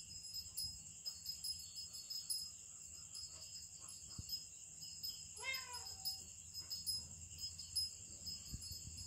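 A steady, high-pitched, pulsing trill of night insects runs throughout. About five and a half seconds in, a cat gives one short meow.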